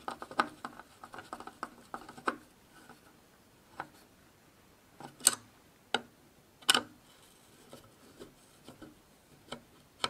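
Small screwdriver turning the tiny screws that hold a metal bracket to a PCIe adapter card: a quick run of small clicks for about two seconds, then scattered single sharper clicks, the loudest a couple past the middle.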